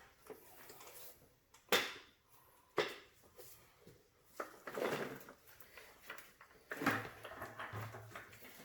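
Hands fitting a rubber drive belt onto a Hoover Sprint vacuum's brush bar: a few sharp plastic clicks and knocks amid softer handling rustle.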